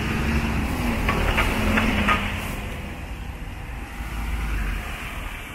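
Street traffic: a motor vehicle passing close by on a wet city road, its low engine rumble loudest for the first two seconds and then fading. A few sharp clicks sound between one and two seconds in.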